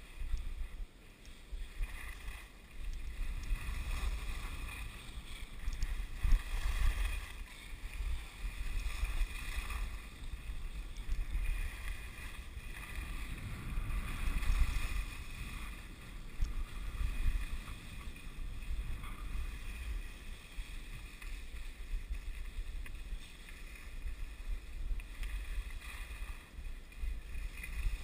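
Wind buffeting the microphone of a camera worn by a downhill skier, a gusting low rumble, over the hiss and scrape of skis carving packed snow, which swells and fades with the turns.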